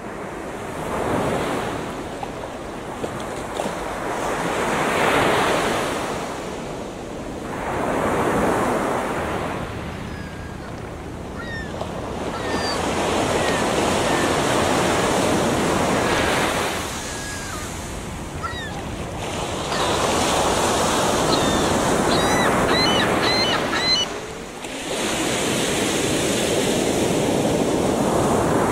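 Sea waves washing against a rocky shore, swelling and ebbing every few seconds, with wind on the microphone.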